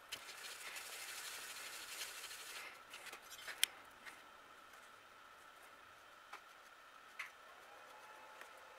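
Faint scraping of a small tool working JB Weld epoxy on cardboard and onto a cracked metal part, lasting the first two or three seconds, followed by a few light clicks and taps.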